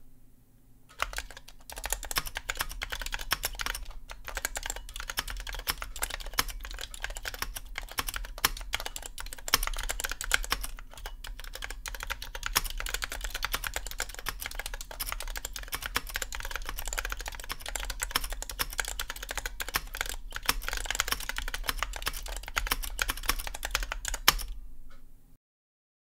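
Typing on a 1970 Micro Switch 53RW4-1 keyboard with magnetic reed switches, on a bare board without a case: a fast, dense stream of key clicks. It starts about a second in and stops shortly before the end.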